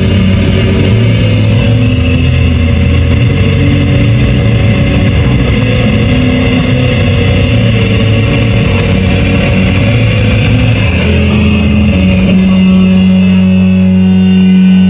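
Music played loud through a pickup's aftermarket car stereo: a 200-watt amplifier driving two 10-inch Kenwood speakers and a 12-inch subwoofer, with heavy deep bass. Slow music of long held notes, moving to one steady low note about eleven seconds in.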